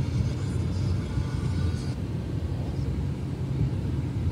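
Steady low rumble of a running car heard from inside its cabin.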